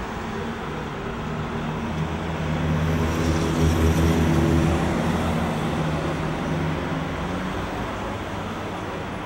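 Road traffic on a city street: a steady rush of passing cars, with one vehicle's engine swelling and fading as it passes close, loudest around four seconds in.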